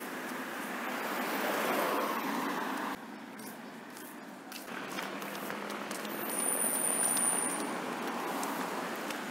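Road traffic: cars driving past on a city street, the tyre and engine noise swelling and fading twice, with an abrupt drop about three seconds in.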